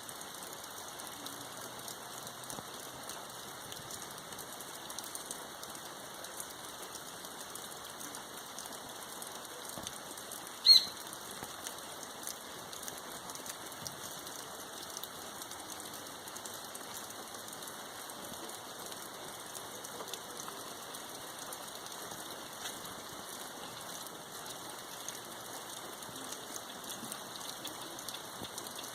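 Rain falling steadily, an even hiss throughout. About ten seconds in, one short, loud, high-pitched sound stands out above it.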